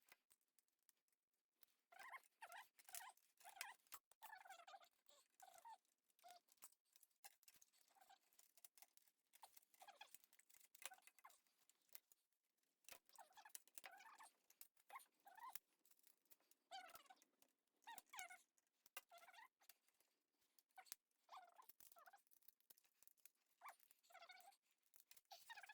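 Near silence with faint, scattered small clicks and short squeaks.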